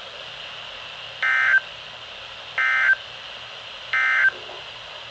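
Three short bursts of NOAA Weather Radio SAME digital data tones, about 1.4 seconds apart, over steady radio hiss. These are the end-of-message code that closes an alert.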